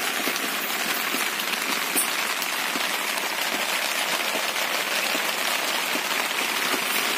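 Kadai chicken sizzling and crackling in oil in the kadai, a steady hiss with fine pops.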